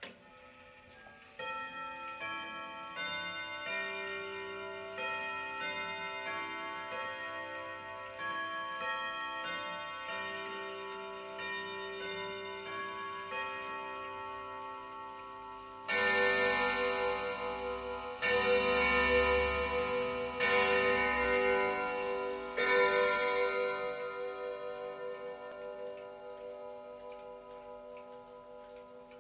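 Tubular-chime longcase clock chiming the hour, set off by turning the minute hand to twelve: a tune of single struck chime tubes for about fifteen seconds, then four louder hour strikes about two seconds apart that ring on and slowly die away, with the clock ticking underneath.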